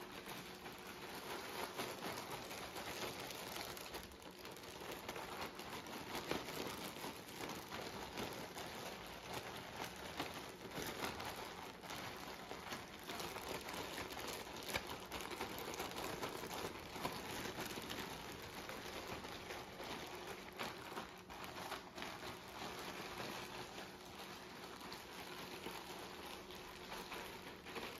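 Mini saltine crackers shifting and rattling inside a plastic zip-lock bag as it is tossed and kneaded by hand, with the bag crinkling: a continuous crackly patter that swells and eases with the handling. The crackers are being coated in melted butter with ranch seasoning and red pepper flakes.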